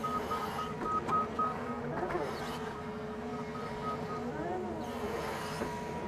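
Doosan excavator's diesel engine and hydraulics running steadily in the cab, set in economy mode, as a loaded bucket is lifted and swung. A rapid series of high beeps sounds over the first two seconds and again briefly near four seconds, with a couple of knocks about a second in.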